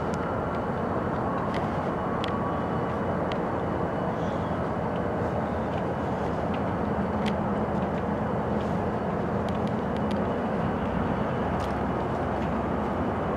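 Diesel-electric locomotive engine running as the locomotive moves a cut of tank cars, with a steady low rumble. The engine note grows stronger about halfway through as the engine loads up, and scattered sharp clicks come from the train.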